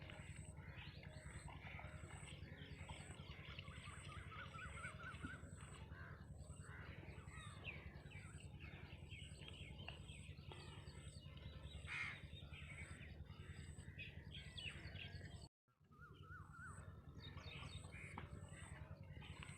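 Many small birds chirping, with crows cawing, over a steady low hum and a faint high pulsing that repeats about twice a second. The sound cuts out completely for a moment about three-quarters of the way through.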